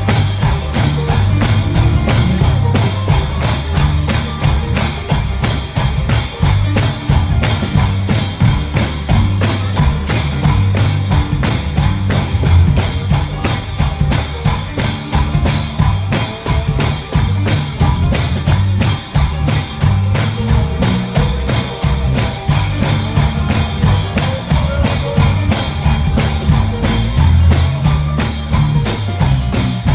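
Live gospel church band playing an up-tempo instrumental stretch with a drum kit and tambourine over a heavy bass line, at a fast, steady beat.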